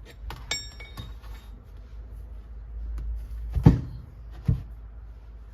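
Steel tooling being handled: a light metal clink with a brief ring about half a second in, then two dull knocks a little under a second apart, the first the loudest, over a low steady hum.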